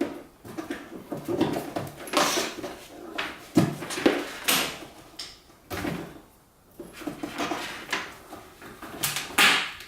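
Hands handling the small door of a homemade light box: an irregular run of knocks, clicks and short scrapes as the door and its panel are worked.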